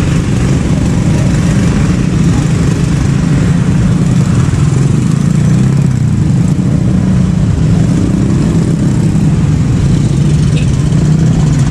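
Many small motorcycle and scooter engines running together as a stream of motorbikes crosses the railway tracks: a steady, loud, low engine drone.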